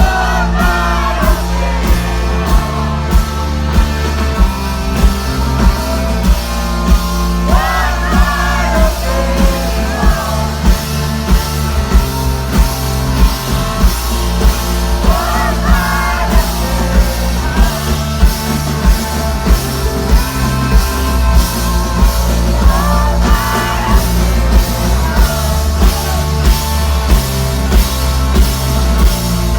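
Live rock band playing loudly, with a steady pounding drum beat under sustained bass and a voice singing over it.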